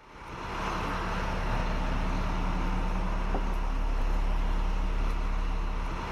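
School bus engine running and road noise, heard from inside the bus as it drives. It fades in over the first second, then holds steady.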